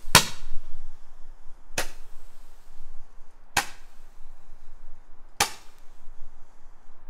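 Roman candle firing: four sharp pops about 1.8 seconds apart, each one shooting out a star.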